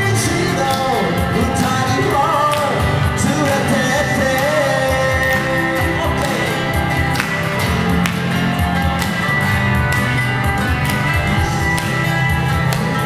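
Live original song: a singer's voice over an amplified hollow-body electric guitar. The singing drops out about halfway through while the guitar keeps playing.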